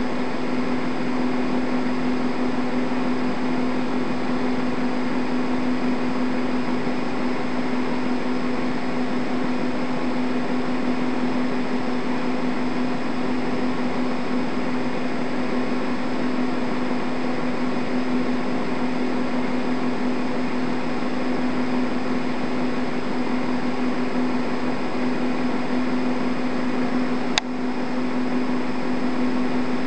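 Steady mechanical hum with a constant low tone and even hiss, unchanging throughout, broken by a single sharp click near the end.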